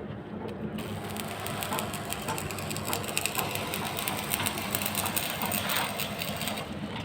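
Construction machinery running with a steady low hum and a fast metallic clattering, the clatter growing stronger about a second in.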